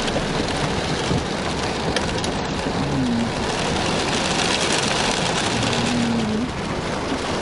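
Heavy rain falling steadily on a car's roof and windows, heard from inside the car.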